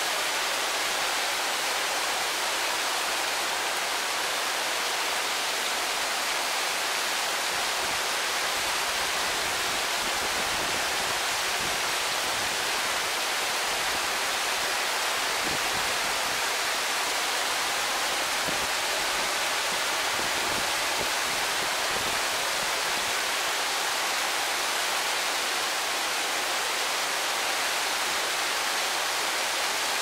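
Japanese garden waterfall: a steady rush of falling water.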